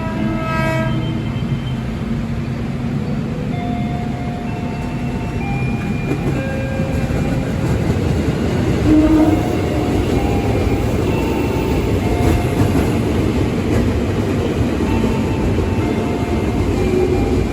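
A train passing on the rails: a steady, loud rumble of wheels and running gear, with a brief horn sound right at the start.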